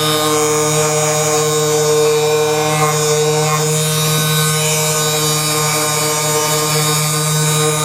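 Steady electric motor buzz with a constant pitch, running unbroken.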